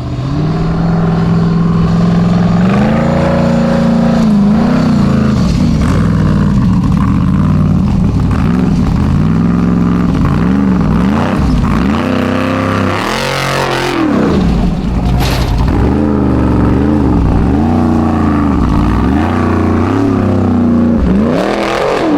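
Formula offroad competition car's engine revving hard, the pitch climbing and dropping over and over as the throttle is worked, with a longer loud rise and fall about two-thirds of the way through.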